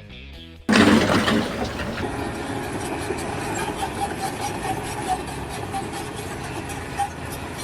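Guitar music cut off under a second in by an engine running steadily, with a dense noisy clatter over it.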